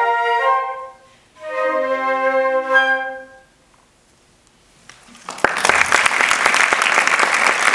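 A flute ensemble plays the closing phrase of a piece, breaking off briefly about a second in and ending about three seconds in on a chord with a low held note underneath. After a short silence the audience applauds.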